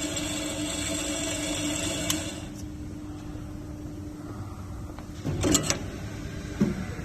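Metal-cutting band saw running with a steady hum and whine, which stops abruptly a little over two seconds in, just after a click. A short clatter of knocks follows about five and a half seconds in.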